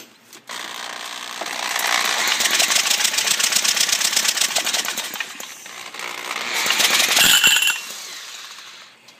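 5 hp single-cylinder small engine being cranked over with its spark plug out: a fast, loud rattling clatter for about five seconds, then a second shorter burst. The engine does not fire because the ignition is giving no real spark.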